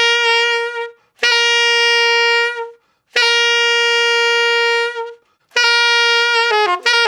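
Alto saxophone playing the same tongued note four times, each a second or two long with short gaps between, every note entered by a quick grace note from a half step above (G sharp into G). Near the end it breaks into a quick run of falling notes.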